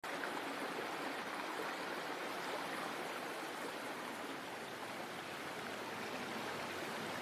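Steady rush of water pouring down a small waterfall.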